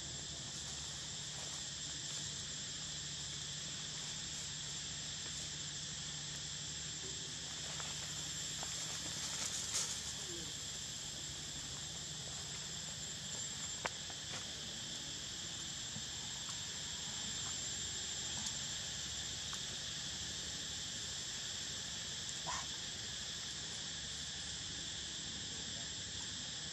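Steady chorus of insects: a continuous high-pitched drone at an even level, with a few brief faint ticks.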